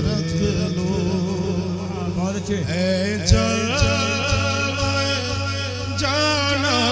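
A man singing a naat into a microphone through a PA, in long, ornamented notes that glide up and down, over a steady low hum. A few soft thumps come through, the loudest about three seconds in.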